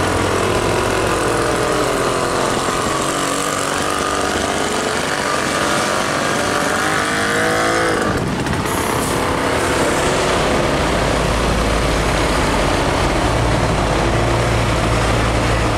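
Heavy cargo truck diesel engines passing close by. First a loaded truck pulls past with its engine note rising as it accelerates. After a sudden break about 8 seconds in, another truck's engine runs with a steady low drone.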